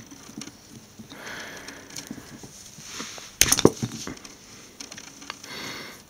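Handling noise as the scored outer jacket of a 12-gauge speaker cable is worked loose and pulled off the inner wires, with a short burst of sharp cracks about three and a half seconds in.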